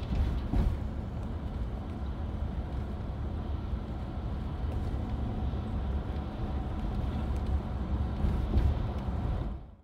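Road noise heard from inside a moving car's cabin on an expressway: a steady low tyre-and-road rumble with a couple of brief thumps, fading out at the very end.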